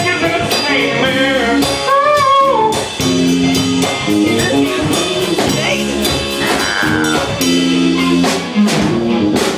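A live band plays a bluesy, funky groove on guitar and drum kit, with held notes and steady drum strokes.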